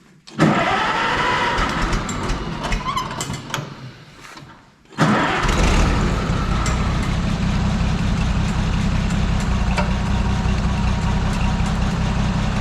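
Oliver 77 tractor's six-cylinder engine being cranked on the starter in the cold, fading out after a few seconds. About five seconds in it starts again with a bang of sound and keeps running steadily, a hard cold start on an engine the owner suspects is short of fuel.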